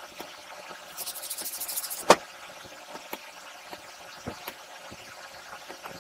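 Emery cloth rubbed quickly back and forth on the rusted, pitted end of a mower engine's crankshaft, a rapid rasping for about a second, which ends in a sharp click. A few faint clicks follow.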